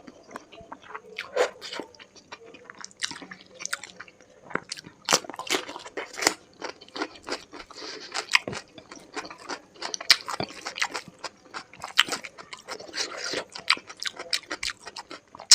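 Close-miked chewing and biting while eating a chicken curry meal with rice, chili and onion: dense, irregular crisp crunches and wet mouth clicks.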